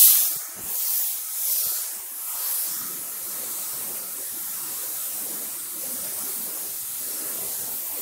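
Gravity-feed spray gun hissing as compressed air atomises paint onto a car panel. The hiss starts sharply, swells three times in the first few seconds as the gun is worked, then runs steady.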